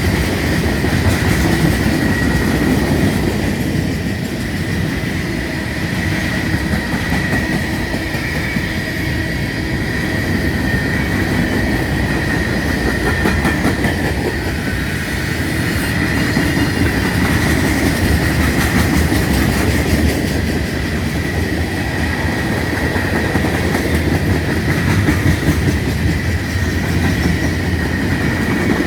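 Freight cars of a long manifest train rolling past at slow speed: a steady rumble with wheels clacking over rail joints, and a steady high-pitched squeal of wheels on the rail throughout.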